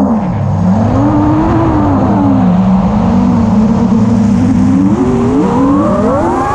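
Electric motor and propeller of an FPV aircraft whining. The pitch stays low and wavers while the throttle is eased off in a dive, then rises steeply near the end as power comes back on. Wind rushes over the onboard microphone underneath.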